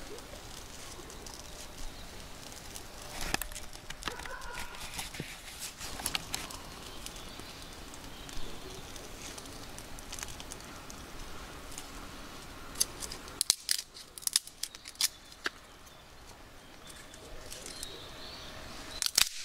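Small wood fire of split kindling burning between two half-logs, crackling with scattered sharp pops. The pops come in a quick flurry about two-thirds of the way in and again near the end.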